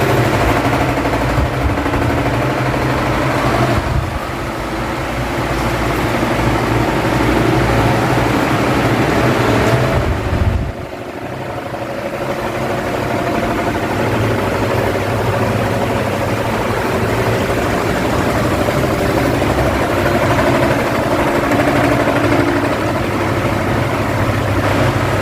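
Electric fan running: a steady motor hum under a broad rush of moving air. The sound drops suddenly about eleven seconds in, then builds back up over the next few seconds.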